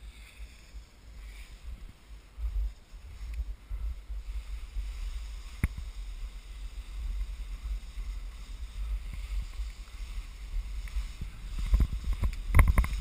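Wind buffeting the microphone of a camera worn by a skier descending, a steady low rumble that grows a couple of seconds in, over the faint hiss of skis sliding through heavy, wet spring snow. A sharp click comes about halfway through, and a few knocks near the end.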